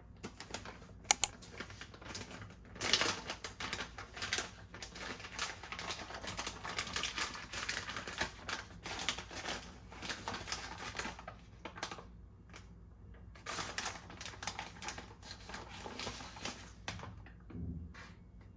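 Plastic bag of potato starch crinkling and rustling as it is handled, opened and tipped over a steel bowl, with a sharp click about a second in.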